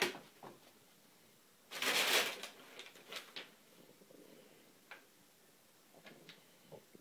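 Brown paper bag rustling and crackling as a cat scrambles into it: a sharp rustle at the start, a loud burst of paper crackling about two seconds in, then a few short crinkles as the cats paw at the bag.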